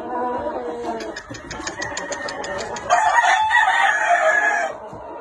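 Gamefowl calling: a shorter pitched call at the start and a run of quick faint clicks, then a rooster crows, the loudest sound, for about two seconds before breaking off near the end.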